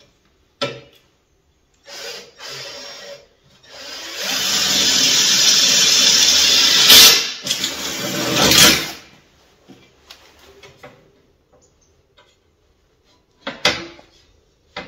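Cordless drill running under load into a chequer-plate metal top for about five seconds, from about four seconds in, with two louder peaks near its end. A few short sounds come before it, and there is a sharp knock near the end.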